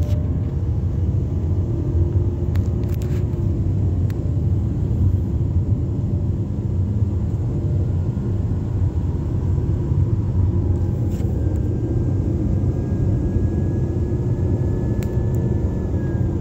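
Cabin noise of a 2020 Mazda CX-9 with the 2.5-litre turbocharged engine driving at highway speed: a steady low road and engine rumble, with a faint high whine coming in about ten seconds in and rising slightly in pitch. The whine is the turbocharger noise the customer complained of; the turbo's wastegate is sticking open from a faulty actuator, so the engine makes no boost most of the time.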